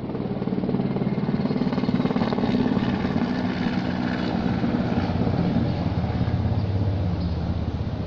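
An engine running steadily, loud against the room, its pitch shifting lower about halfway through.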